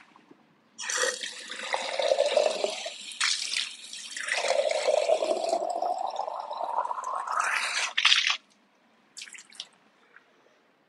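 Water running into a container in two spells: a short one, then a longer one whose pitch rises steadily as the container fills, cutting off suddenly.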